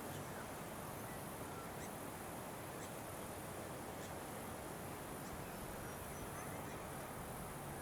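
Faint outdoor ambience: steady background noise with a few scattered, distant bird chirps.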